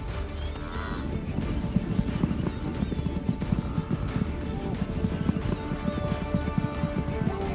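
Hoofbeats of a running herd of grazing animals, a dense rapid drumming of hooves, over a steady documentary music score.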